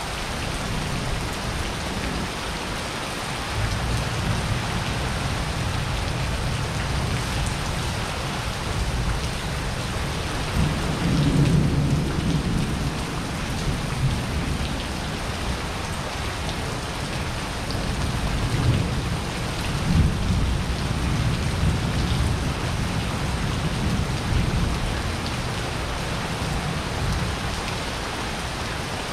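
Steady rain falling on wet paving during a thunderstorm, with thunder rumbling low through most of it, swelling about a third of the way in and again about two-thirds in.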